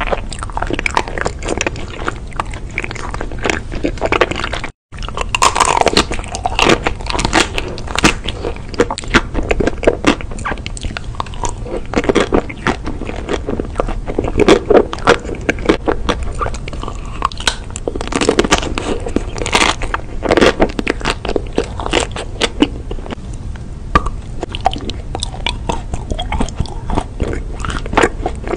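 Close-miked biting and chewing of chocolate-coated ice-cream treats: irregular crunches and crackles of the coating mixed with wet chewing mouth sounds. The sound drops out for a split second about five seconds in.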